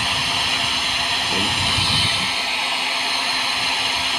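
Small low-range Nova hair dryer running on its second, faster fan setting: a steady rush of air with a faint steady hum underneath.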